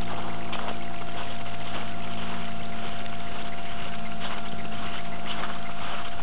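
Footsteps crunching in snow at a walking pace, a few faint crunches here and there, under a loud, steady rushing noise with a constant hum from the camera's own recording.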